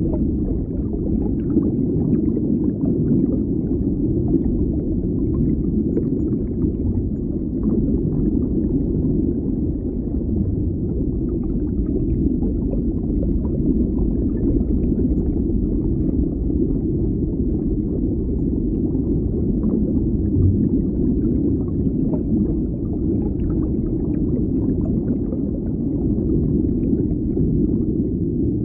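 Underwater bubbling of water: a steady, muffled low rumble with faint small bubble pops scattered through it.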